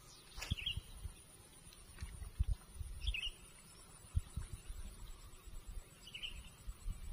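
A bird gives three short chirps about three seconds apart, over low irregular thumps and rumble and a faint steady high hiss.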